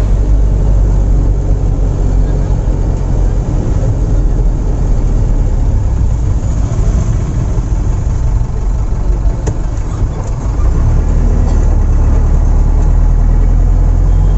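Bus engine running and road noise heard from inside the driver's cab while driving, a steady low drone. It eases briefly about ten seconds in, then picks up again.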